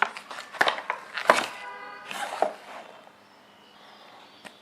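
Plastic packaging of a lens cleaning kit being handled and opened: a quick run of clicks and rustles with a brief squeak, settling to quiet about three seconds in, with one small click near the end.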